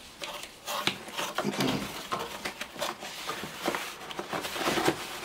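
Handling noise: cardboard rustling and scraping, with scattered clicks and clinks of metal tools and cables, as items are lifted out of a packing box.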